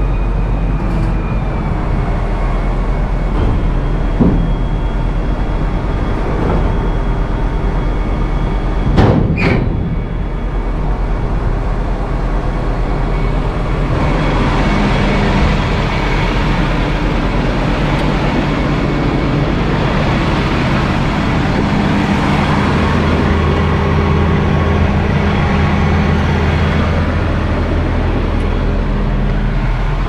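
CLAAS Axion 930 tractor's six-cylinder diesel engine running steadily, with one sharp loud knock about nine seconds in. From about fourteen seconds on the engine sounds fuller and louder.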